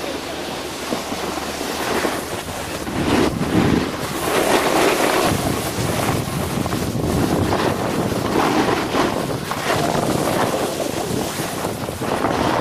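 Snowboard sliding and carving over packed snow, a rushing scrape that swells and eases from turn to turn, with wind buffeting the microphone.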